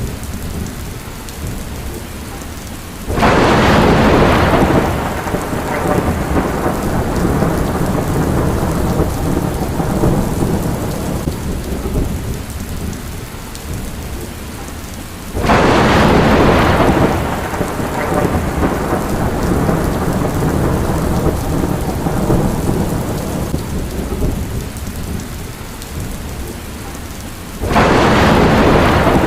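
Steady rain with thunder: three sudden loud claps, evenly spaced about twelve seconds apart, each rumbling away over several seconds.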